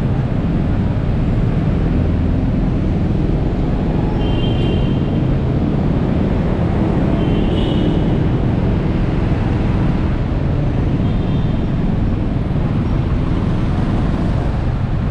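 Steady low rumble of a motorcycle creeping through congested city traffic, with the engine and surrounding traffic noise heard from the rider's own bike. A few brief high-pitched tones sound along the way.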